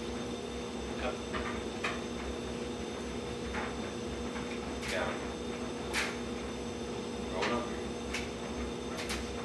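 Short, quiet words spoken now and then to a dog in training, about nine or ten brief sounds spread through, over a steady electrical hum in the room.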